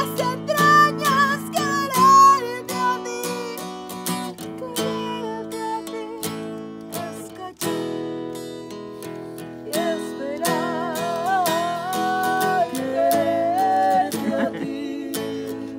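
Acoustic guitar strummed in a steady rhythm, with a voice singing a wavering melody over it, most clearly in the second half.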